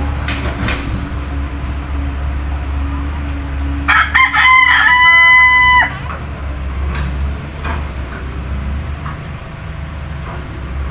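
A rooster crows once, about four seconds in: a single call of about two seconds that rises at the start and then holds its pitch, over a steady low hum.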